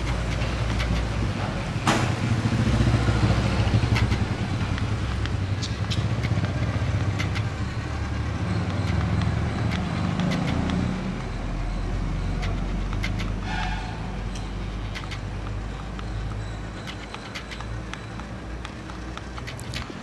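Cardboard RC road roller driving over loose gravel: a low steady rumble from its motor and rolling drum and wheels, with scattered small crunching clicks of the stones. The rumble is loudest in the first few seconds and eases off later.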